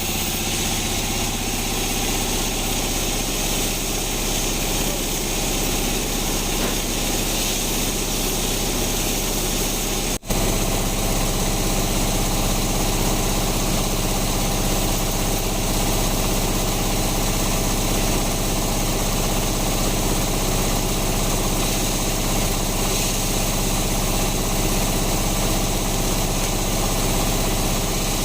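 Band sawmill machinery running steadily: a constant motor hum with an even hiss above it. A momentary break about ten seconds in, after which it runs slightly louder with a changed hum.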